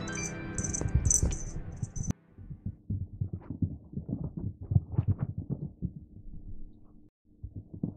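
Music with bright tinkling chimes that cuts off about two seconds in. Then irregular soft thumps and scuffs of two cats wrestling on carpet close to the microphone, over a low steady hum.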